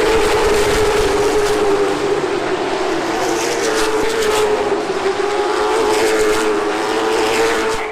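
NASCAR Late Model stock car's V8 engine running loud at racing speed, its pitch holding nearly steady with only slight wavering.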